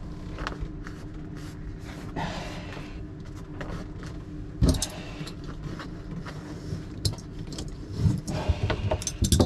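Scattered clicks, taps and knocks of hands and tools at work, over a steady low hum. One louder knock comes about halfway through, and a quick run of knocks near the end.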